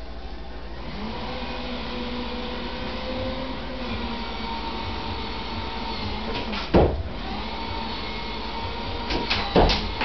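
Steady mechanical hum under the scene. A kitten jumps against a refrigerator door, making a sharp knock about seven seconds in and a quick run of knocks near the end.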